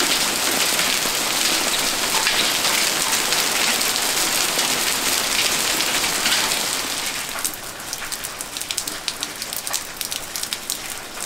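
Heavy rain falling on a concrete patio and puddles, a dense even hiss. About seven seconds in it becomes quieter, with separate drops ticking.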